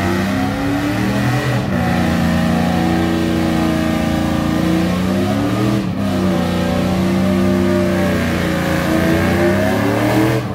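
Car engine revving hard and held at high revs, its pitch swaying slightly, with two brief dips in revs about 2 and 6 seconds in.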